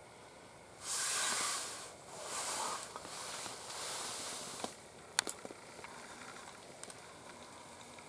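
Three bursts of rustling close to the microphone, the first the loudest, followed about five seconds in by a few sharp clicks.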